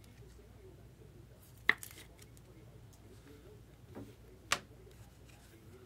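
Trading cards being handled on a table: two sharp taps, about three seconds apart, with a lighter tap just before the second.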